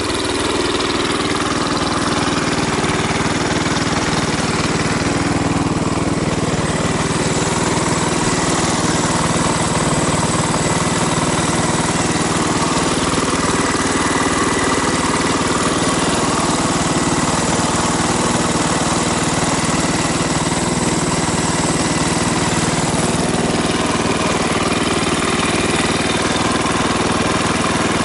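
KTM enduro dirt bike engine idling steadily, with no revving.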